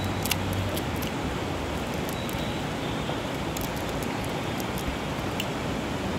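Steady rushing background noise with a few faint, sharp clicks.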